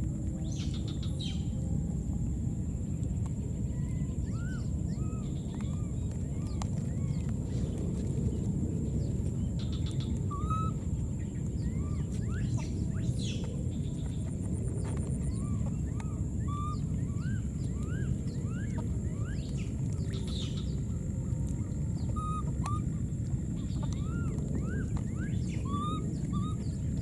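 Outdoor ambience: a steady low rumble of noise, over which short arching chirps repeat every second or so. A constant thin high whine runs beneath.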